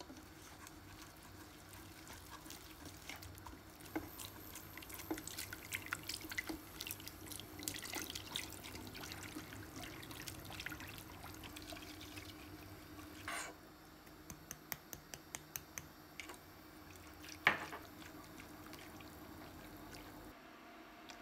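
Wire whisk clicking and scraping against a saucepan, whisking butter and flour and then milk into a béchamel sauce, with liquid sloshing. The quick clicks are densest in the first half, with a couple of louder knocks later.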